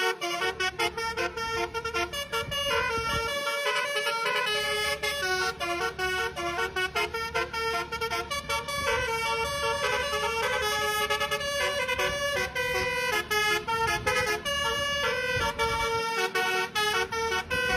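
Basuri-type 'telolet' multi-tone bus horn playing a quick tune of changing notes over a low engine rumble. The rumble drops out briefly about three and a half seconds in and again near the end.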